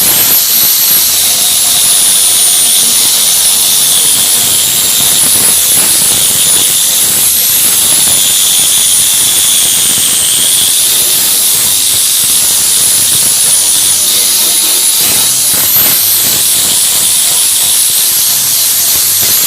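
A workshop tool running steadily with a loud hiss and a high whistle that wavers slightly in pitch.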